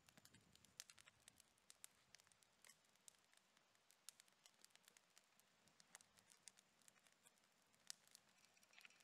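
Wood campfire crackling faintly, with irregular sharp pops and snaps several times a second.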